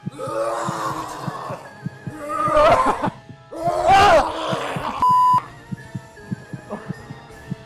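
People screaming in fright, three loud bursts in the first half, over a music track with a steady low heartbeat-like pulse. About five seconds in comes a short censor bleep.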